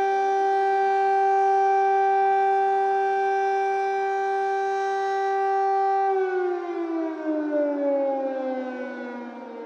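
Air raid siren sounding a loud, steady, held tone, then winding down, its pitch falling from about six seconds in.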